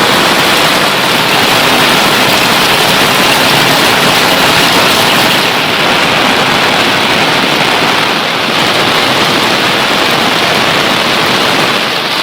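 Heavy monsoon rain falling in a steady, loud hiss.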